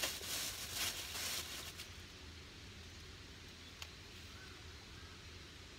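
A packet of dried oregano rustling for about two seconds as it is shaken over a cooking pot, then a faint steady background with one small click.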